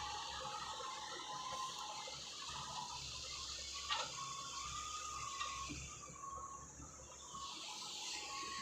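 Heavy construction machinery working: a steady low engine rumble with a faint wavering whine, and a single sharp click about four seconds in.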